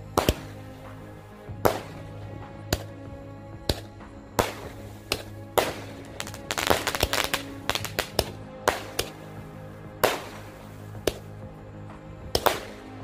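Aerial fireworks going off in a string of sharp bangs at irregular intervals, about a dozen in all. A quick run of crackling pops comes around the middle. Steady background music plays underneath.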